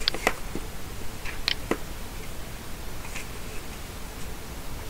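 A few sharp clicks of a computer mouse button, in two pairs about a quarter second apart and then a fainter single click, over steady microphone hiss.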